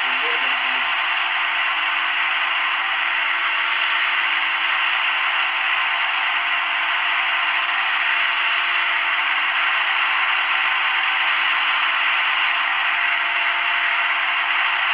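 Machining sound of a CNC lathe simulator as the virtual tool turns the workpiece in a G71 roughing cycle: a steady machine noise with a low hum under it, its top end shifting slightly about every four seconds.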